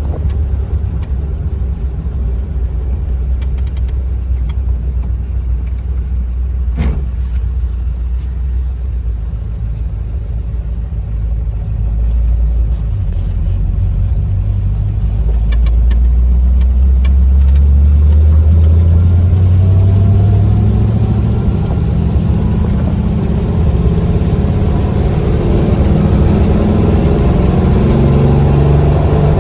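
A 1940s car's engine running as the car is driven, a steady low rumble that climbs in pitch and grows louder about halfway through as it speeds up, with higher rising engine tones in the last third. A few sharp clicks sound in the first half.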